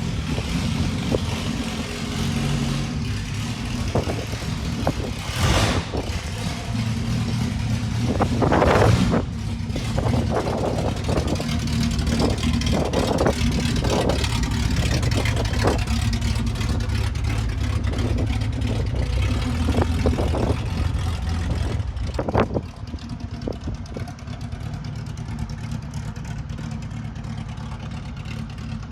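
Car engine running steadily while the vehicle is moved, with a few light revs and scattered knocks and clunks over it. It settles quieter about 22 seconds in.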